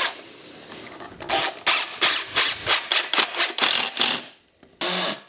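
Cordless impact driver hammering screws into a 2x4 softwood frame: a rapid run of short, sharp rattling bursts from about a second in to about four seconds in, and the tool starting up again just before the end.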